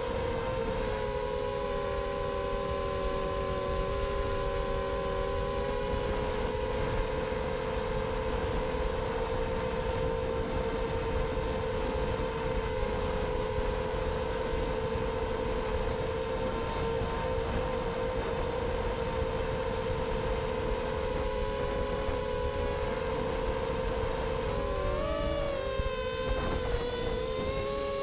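FPV miniquad's electric motors and propellers whining steadily in a chord of several close pitches over a rushing hiss. Near the end the pitches dip and rise again.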